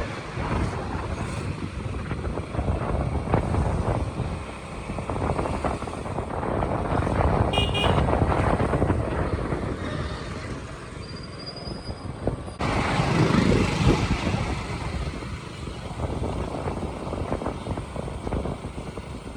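KTM 200 Duke's single-cylinder engine running as the bike rides through town traffic. A vehicle horn toots briefly about eight seconds in.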